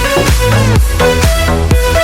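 Electronic dance music with a steady four-on-the-floor kick drum and sustained synth notes.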